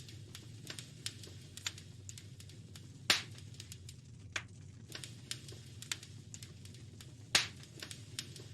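Wood fire crackling in a fireplace: irregular sharp snaps and pops over a steady low rumble, with two much louder pops about three seconds and seven seconds in.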